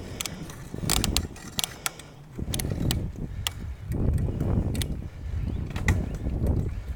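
Mountain bike rolling along a paved trail: a low, uneven rumble of tyres and wind on the microphone, with scattered sharp clicks and rattles from the bike at irregular intervals.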